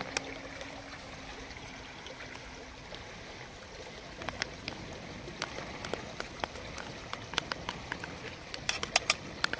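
Light clicks and taps of a spoon scooping pasta sauce into a titanium pot, over a steady soft hiss.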